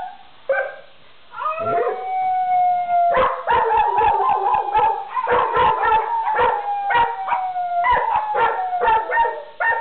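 Pet dogs howling on cue: long, slowly falling howls begin about a second and a half in, and short yips and barks keep breaking in over them until near the end.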